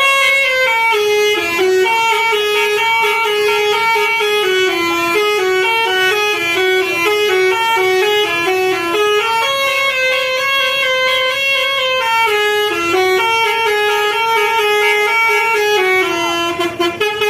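Bus musical 'basuri' (telolet) horn playing a stepped melody in short held notes. The tune runs through once and starts again about halfway through.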